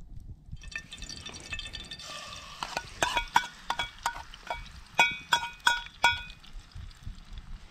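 A metal spoon knocking and scraping chopped greens out of a bowl into a pan of hot oil: about a dozen sharp, ringing metal clinks, over a steady sizzle from the oil.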